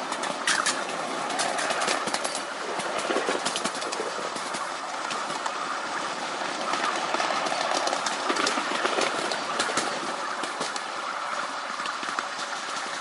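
Miniature railway train running along its track: a steady rumble of wheels on rail with frequent sharp clicks as the wheels pass over rail joints.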